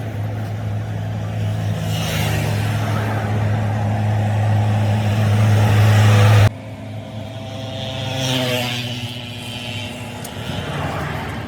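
A motor running with a steady low hum, growing louder, then cut off abruptly about six and a half seconds in; after that a quieter mix of running noise with a short pitched sound near the end.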